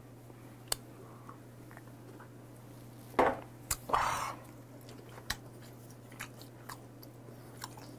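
A person eating raw salmon sashimi close to the microphone: quiet chewing and mouth sounds, with a few short breathy bursts a little after three and four seconds in and scattered sharp clicks. A low steady hum runs underneath.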